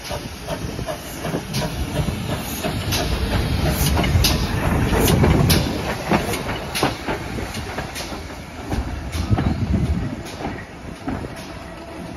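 Steam locomotive rolling slowly past close by, its wheels rumbling with repeated clanks and clicks over the rail joints. It is loudest about five seconds in as it goes by, then fades as it moves away.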